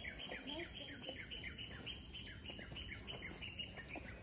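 A bird calling a rapid, even series of short falling chirps, about four a second, which fades out near the end.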